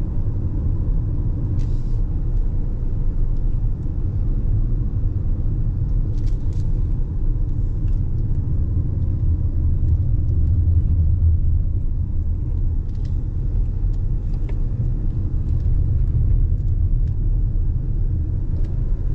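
Car driving down a steep mountain road: a steady low rumble of road and engine noise, heard from inside the cabin, with a few faint clicks.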